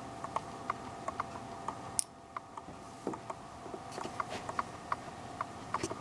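Atwater Kent 10B breadboard radio's loudspeaker putting out irregular crackling static over a faint steady whistle while being tuned between AM stations, with one sharp click about two seconds in.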